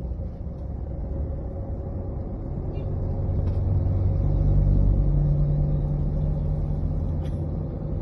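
A road vehicle's engine and road rumble, heard from inside the moving vehicle. The engine note grows louder and higher about three seconds in, then holds steady.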